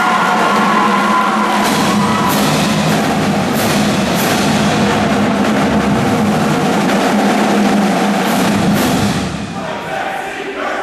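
Marching drumline of snare drums, tenor drums and bass drums playing together with sousaphones, with many sharp drum hits over a steady low brass tone. The playing gets quieter about nine seconds in.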